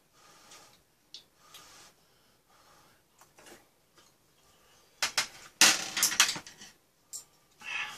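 Soft eating sounds, then about five seconds in a burst of metal utensils clattering against a frying pan and a steel tray, with one more short clink near the end.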